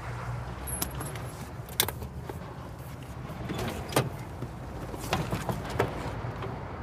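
Clicks and rattles of a man moving about in a parked convertible and opening its door. Sharp knocks come about two and four seconds in, over a steady low rumble.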